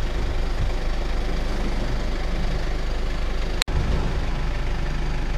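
Mercedes-Benz Sprinter 315 CDI's four-cylinder turbodiesel idling steadily, a low, even rumble. The sound breaks off for an instant a little past halfway.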